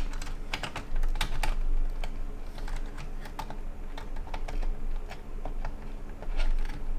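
Irregular light clicks and taps of computer case fans and PC parts being handled, over a steady low hum.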